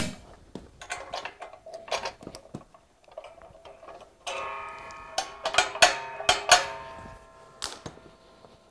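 Clicks and clinks of a hand wrench and steel snow-plow mounting parts being fitted and tightened together, with a run of louder metal-on-metal strikes that ring on briefly just past the middle.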